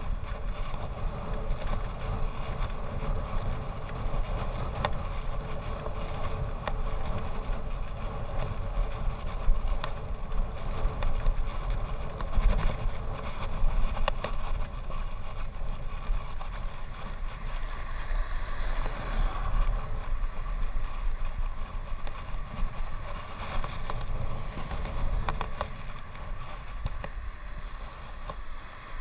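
Wind rumbling and buffeting over a bicycle-mounted camera's microphone while the bike rolls along the road, with tyre noise underneath and a few sharp knocks.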